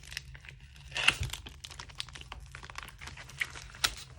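Packaging crinkling and rustling as a parcel is unwrapped by hand, with sharp crackles about a second in and again near the end.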